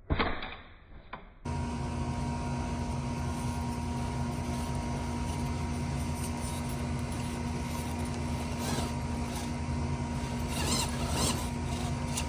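A steady mechanical hum with a constant tone, starting suddenly about a second and a half in after a brief quiet moment, with a few faint short sounds near the end.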